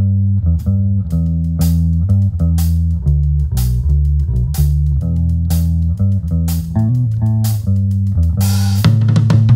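Instrumental passage of an indie rock song: bass guitar holding low notes under a picked guitar line, with sharp ticks about twice a second. A hissing swell builds near the end.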